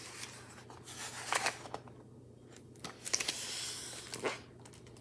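A large paper page of a picture book being turned: several short rustles and crinkles, with a longer swish of the page a little after the middle.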